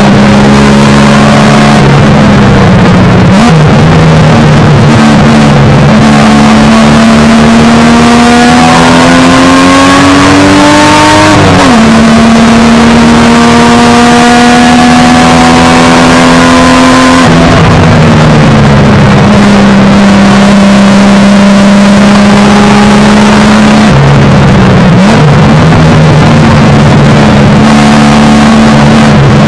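1971 Triumph GT6's straight-six engine at racing revs, heard very loud from inside the cockpit. The revs climb for several seconds and fall sharply at a gear change about eleven seconds in, then hold fairly steady before dropping again around seventeen seconds and dipping briefly twice more.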